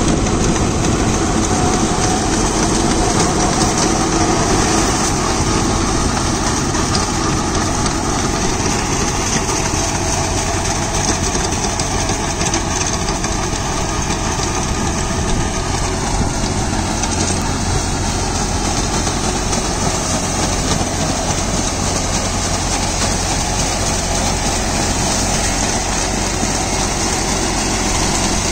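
John Deere 5075E tractor's 2.9-litre common-rail diesel engine running steadily under PTO load, with the PTO-driven Shaktiman Tusker rotary tiller churning soil and chopping banana stalks.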